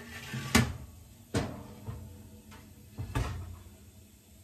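Metal baking tray knocking against the wire rack of a gas oven as it is slid in, then the oven door closing: three sharp knocks with a brief ringing, the last about three seconds in.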